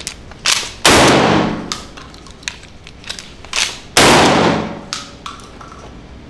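Two 12-gauge shots from a Mossberg Maverick 88 pump-action shotgun, about three seconds apart, each ringing on with a long echo off the indoor range walls. Between them come smaller sharp clacks as the pump action is worked.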